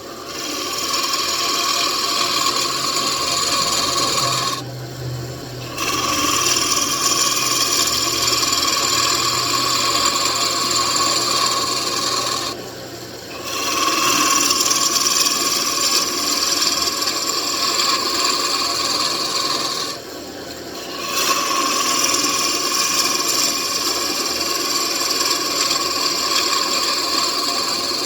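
A turning tool cutting a spinning mahogany table leg on a wood lathe, tapering it down with a steady scraping hiss. The cutting goes in four long passes, easing off briefly three times, about 5, 13 and 21 seconds in.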